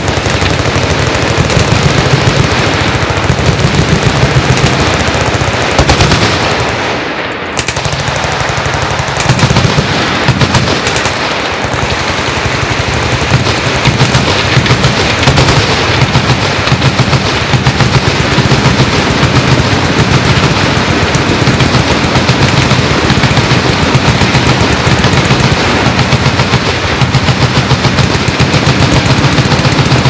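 Many fully automatic machine guns firing at once in a continuous, overlapping barrage of rapid shots, thinning briefly about seven seconds in before picking up again.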